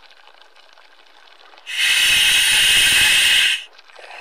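A scuba diver breathing through a full-face mask regulator, picked up by the mask's communication microphone: a loud, steady hiss of air lasting about two seconds, starting a little under two seconds in.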